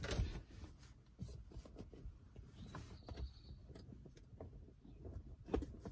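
Faint clicks and handling noises of plastic bling headrest hooks being fitted onto the back of a car seat, with a sharper click near the end.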